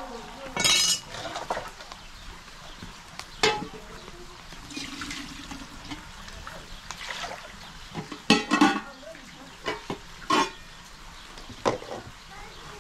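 Dishes and cutlery clinking in a series of sharp, scattered knocks, with brief bits of voices between them.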